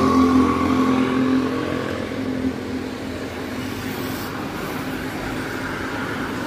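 Road traffic going by: a passing motorcycle's engine fades away over the first couple of seconds, then a steady hum of cars driving past.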